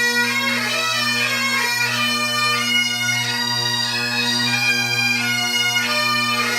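Great Highland bagpipes playing a tune: a steady low drone sounds throughout while the chanter moves from note to note above it.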